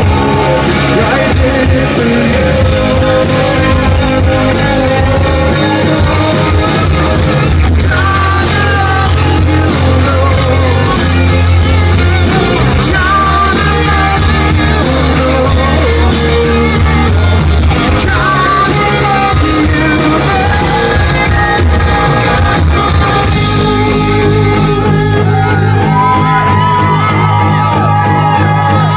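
Live rock band playing loud, amplified, with guitars and a male lead vocal, heard as a recording made in the concert hall.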